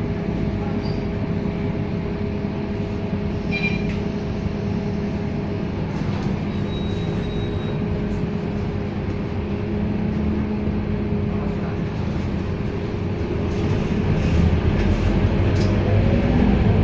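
Scania K230UB city bus heard from inside the cabin: its diesel engine and drivetrain running steadily with a held whine, with a few small rattles. The low engine note grows louder near the end.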